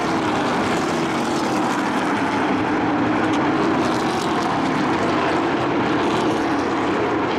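A pack of race trucks' engines running hard around a paved oval track: a loud, steady drone of many engines together, with a low engine note that drifts slowly up and down in pitch.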